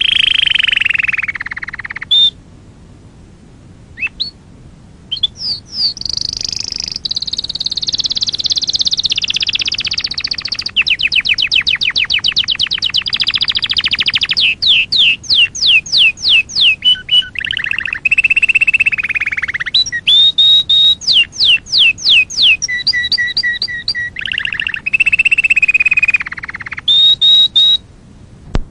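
Birds singing loudly in a varied sequence: warbling phrases, a fast even trill, and runs of quick sharp rising whistles, with a brief pause about two seconds in.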